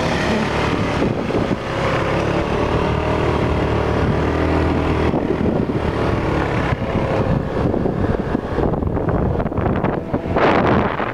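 Small motor scooter engine running while riding, with wind buffeting the microphone that grows stronger toward the end.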